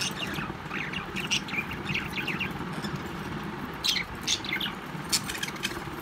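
Budgies chattering in short, quick chirps, with a few louder, sharper calls about four and five seconds in, over a steady low hum.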